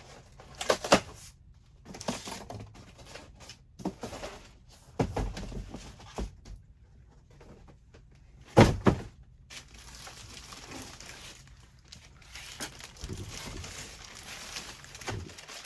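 Cardboard box and packing material being handled: a string of irregular knocks and thumps, the loudest about halfway through, with rustling and crinkling of packaging through the second half.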